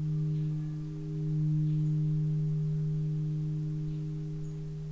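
Crystal alchemy singing bowl ringing with one steady low tone and a couple of fainter higher overtones. It swells about a second in, then slowly fades.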